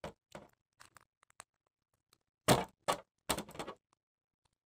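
Plastic wrestling action figures clacking against each other and knocking on a toy wrestling ring, handled by hand: a few light taps, then two louder flurries of knocks about two and a half and three and a half seconds in.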